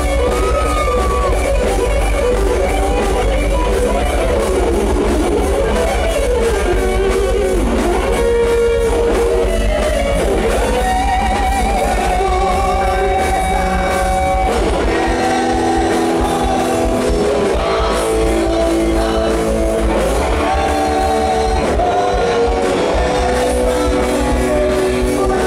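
Live rock band playing: electric guitars with a singer over them.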